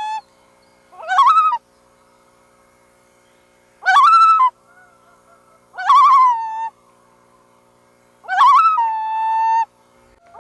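Loons calling: a string of separate calls, about two seconds apart, each with a quavering pitch, one ending in a longer held note. Another call starts at the very end.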